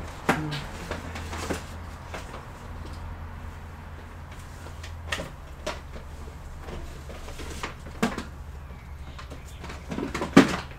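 Scattered knocks and clatter of someone rummaging through storage for a blue-tip laptop charger adapter. There are a few sharp knocks, and the loudest cluster comes near the end, over a steady low hum.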